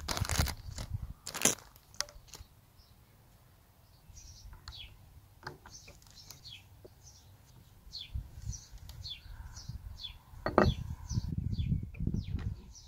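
Handling noise of an Allen key and gloved hands working the CO2 cap screw in the butt of a T4E HDS 68 airgun's grip: scattered small clicks and scrapes, the sharpest three near the start, about a second and a half in and near the end, with a plastic bag rustling at the start. Small birds chirp throughout.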